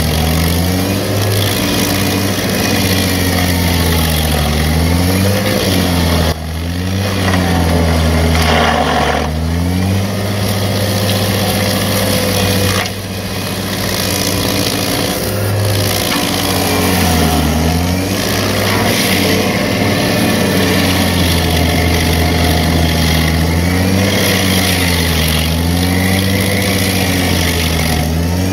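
Vermeer Stump 502 stump grinder running under load, its cutter wheel grinding into a tree stump with a continuous grinding of the teeth through the wood. The engine note sags and recovers again and again as the wheel bites into the stump and is swept across it.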